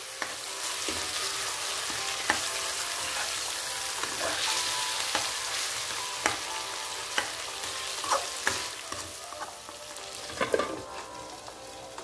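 Chicken pieces sizzling in hot oil with onions and garlic in a wok while a metal ladle stirs them, scraping and knocking against the pan every second or so. A louder clatter comes near the end.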